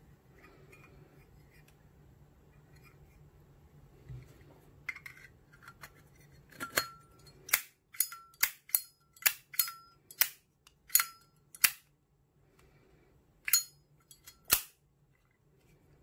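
High-polish brass Zippo lighter's hinged lid flicked open and snapped shut over and over: a run of about ten sharp metallic clicks at roughly two a second, several with a short bright ring, then two more clicks near the end.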